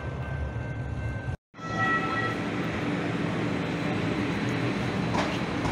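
Calgary CTrain light-rail car running on the track, a steady rumble with thin whining tones. The sound cuts out completely for a moment about a second and a half in. After that a faint motor whine rises slowly in pitch.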